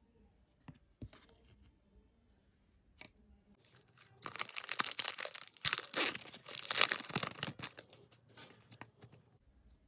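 Trading-card pack wrapper being torn open and crinkled: a few faint clicks of handling, then a dense, loud crackling stretch starting about four seconds in and dying away about four seconds later.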